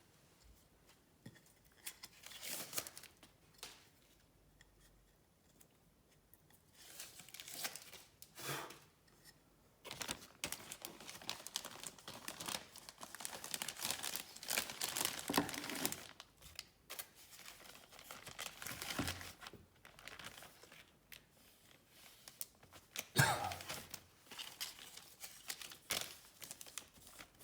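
Hands handling the parts of a plexiglass router base and template guide: plastic crinkling and rustling, with scattered clicks and knocks of the pieces being fitted.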